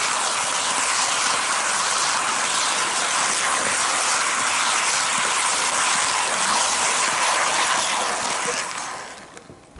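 HO-scale model train running along the track, heard from a camera car coupled into the train: a steady whirring rattle of wheels and motor, which fades away near the end.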